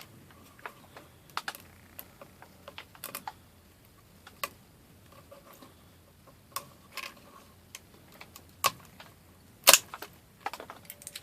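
Irregular small clicks and snaps of PLA support towers being broken off a 3D print, with the loudest snap near the end.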